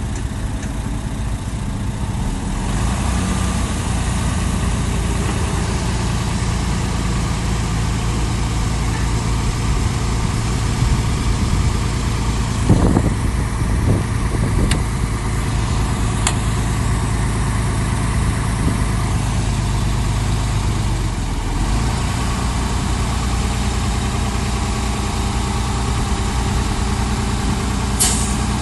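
Heavy diesel engine of earthmoving machinery running steadily, with a few short sharp knocks around the middle and one near the end.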